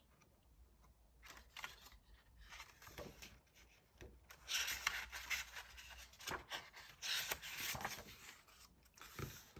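Paper page of a picture book rustling and scraping as it is turned by hand, a run of irregular rubbing sounds that grows louder about halfway through.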